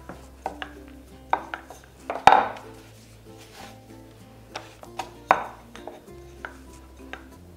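A wooden rolling pin knocks and rolls on a wooden pastry board as dough is rolled out, with a few sharp knocks, the loudest about two seconds in and again about five seconds in. Light background music plays underneath.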